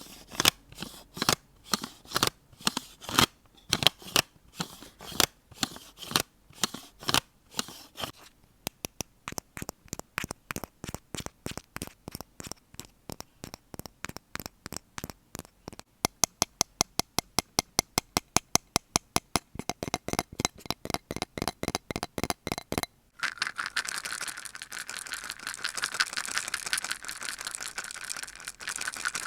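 A run of close-miked ASMR triggers. First come irregular sharp taps and clicks, then quick, even tapping at about four to six taps a second. Near the end about six seconds of continuous scratching follow.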